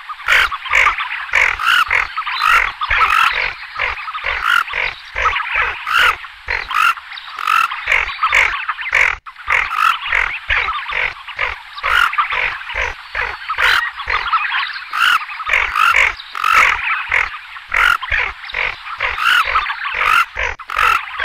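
Tufted ducks giving a dense chorus of short, overlapping croaking calls, many calls every second without a break.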